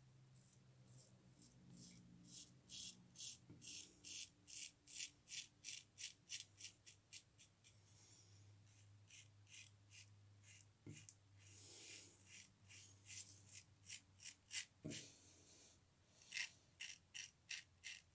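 Ever Ready safety razor scraping stubble through shaving lather in short rasping strokes, about two or three a second, in runs with a couple of brief pauses.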